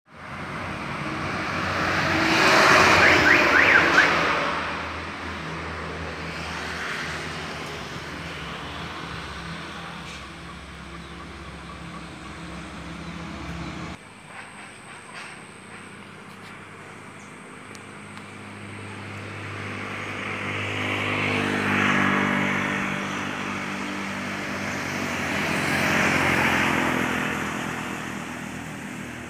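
Road vehicles passing by, each one swelling and fading away: loudest about three seconds in, and again twice near the end.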